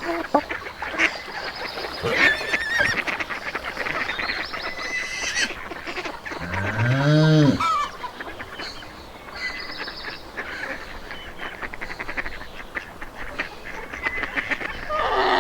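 Farmyard animal calls: honking from geese with scattered clicks, and one low moo from a cow that rises and falls in pitch about six and a half seconds in. A steady held pitched sound starts just before the end.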